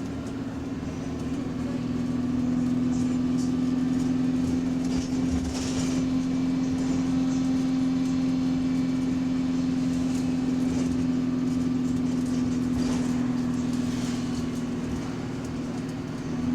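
A city bus's diesel engine running under throttle, heard from inside the bus as a steady hum that grows louder about two seconds in and eases off near the end. The uploader says a repetitive ticking comes through whenever the engine is throttling.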